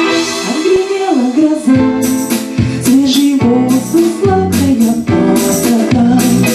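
A song: a singing voice carries a melody over instrumental accompaniment, with a percussive beat about two strokes a second.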